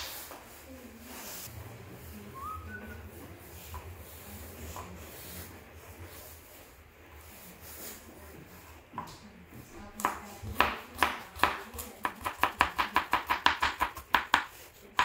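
Chef's knife chopping fresh turmeric root on a plastic cutting board. After several seconds of quiet handling, scattered knife strikes begin about ten seconds in and turn into a rapid, even run of sharp knocks, about four a second.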